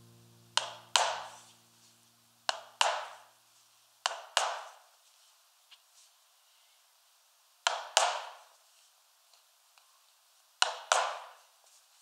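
Mallet striking a leather punching tool held against a leather case on a wooden block: five pairs of sharp knocks, each a double strike with a brief ringing tail, a second or two apart.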